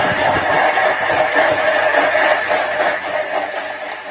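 Thermomix TM6 grinding coffee beans with cardamom seeds at speed 8: a loud, steady whirring grind that eases off somewhat near the end.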